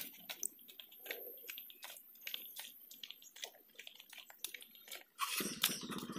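Footsteps in flip-flops crunching and scuffing on a wet gravel road: irregular soft clicks. About five seconds in, a louder rough noise cuts in.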